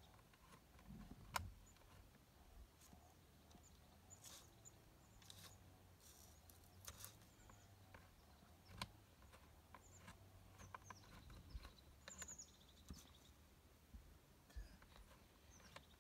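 Near silence with faint scattered clicks and light metallic rattles: a chainsaw chain being fitted by hand onto the guide bar. A few faint high chirps come through now and then.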